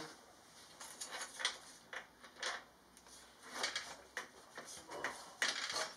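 Irregular light knocks and clicks of metal as the old exhaust system's pipes are jiggled and worked loose from the motorcycle.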